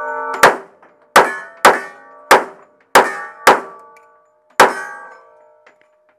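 Seven gunshots in a quick, uneven string, each a sharp crack followed by a fading metallic ringing; the last comes after a longer pause.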